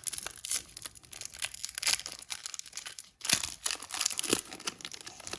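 A hockey trading card pack's wrapper being torn open and crinkled by hand: a run of crackly tearing and rustling, with a short pause about three seconds in.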